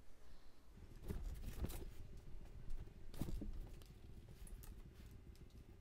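Faint rustling and light taps of watercolor paper being slid and turned on a wooden tabletop, with small clicks clustered about a second in and again near the middle.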